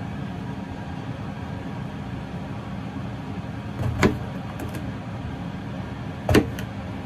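Chef's knife slicing through a long eggplant and knocking on the cutting board twice, about two seconds apart, over a steady background hum.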